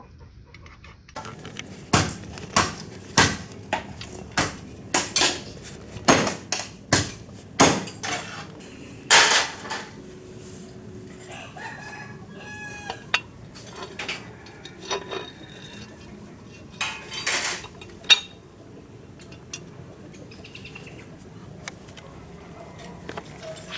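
Sharp metallic knocks and clinks of steel parts being struck or handled: about a dozen in quick, uneven succession over the first eight seconds, then fewer and lighter. A rooster crows in the background partway through.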